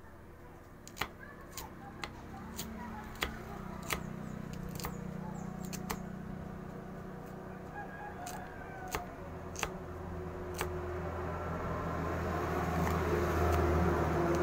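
Kitchen knife chopping green beans on a wooden chopping board: a string of sharp, irregular knocks, roughly one every half second to a second, each one the blade striking the board. The chopping stops about ten and a half seconds in.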